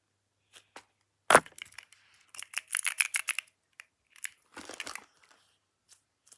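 Things being handled on a desk: a sharp knock about a second in, then two runs of quick crackling clicks.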